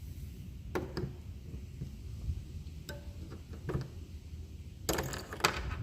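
Small plastic clicks and taps from handling a car key fob while the old coin-cell battery is worked out of it, a few single clicks and then a quick cluster of them near the end.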